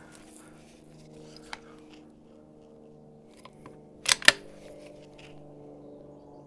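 A single .22LR rimfire rifle shot from a Vudoo bolt-action rifle: a short sharp crack about four seconds in, followed closely by a second crack. A faint steady hum sits underneath, with a small click about a second and a half in.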